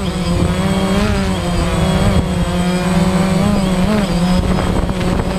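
DJI Phantom quadcopter's motors and propellers buzzing steadily as it hovers low, heard up close from the camera mounted on the drone. The pitch wavers up and down slightly as the motors adjust their speed.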